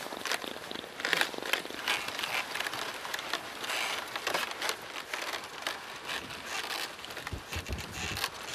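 Dry snow crunching in an irregular crackle under a person's boots and a horse's hooves as a wooden sledge is pulled across it.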